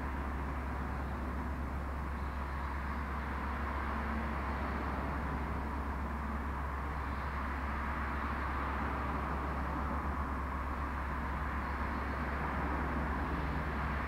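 Steady background noise: a constant low hum with an even hiss over it, unchanging throughout, with no distinct events.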